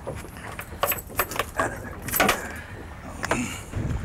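Scattered knocks and light metallic rattles on a small boat's fiberglass deck as fishing gear is handled and feet shift about, over a steady low rumble.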